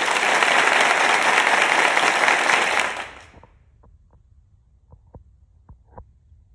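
Applause sound effect for about three seconds, fading out. Then faint, scattered crunches of cats chewing dry kibble.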